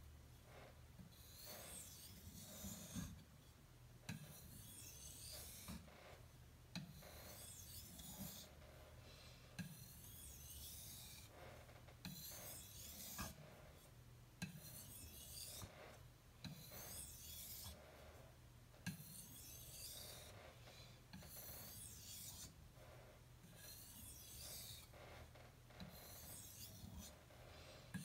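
ESEE-3 knife blade stroked back and forth across a wet Suehiro Debado finishing whetstone, polishing the blade: a quiet hissing scrape with each stroke, about one every one and a half seconds, with a light tap now and then as the blade turns.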